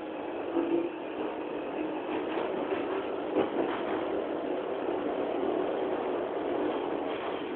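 London Underground Jubilee line train running past a platform and out of the station, heard from inside the carriage: a steady rumble and rush of wheels on the rails, with a few sharp rail clicks about three and a half seconds in.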